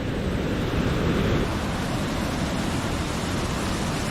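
Steady rushing roar of a waterfall, Conestoga Falls, running at high flow after heavy rain.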